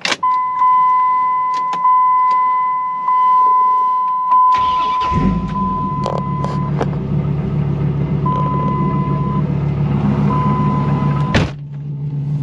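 Dodge Ram SRT-10's 8.3-litre Viper V10 cranked and started about four and a half seconds in, then idling steadily through its side-exit exhaust. A steady electronic warning chime sounds before the start and twice more briefly afterwards. Near the end a door shuts with a sharp knock, and the engine sounds quieter from then on.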